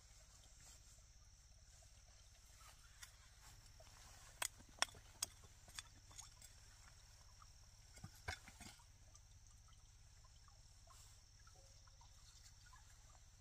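Near silence over a low steady hum, broken by a handful of short, sharp clicks: a quick run of four about four and a half seconds in, and two or three more about eight seconds in.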